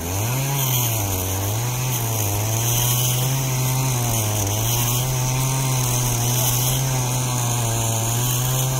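Small boat engine of a motorized outrigger bangka running steadily, its pitch wavering slightly up and down in the first couple of seconds.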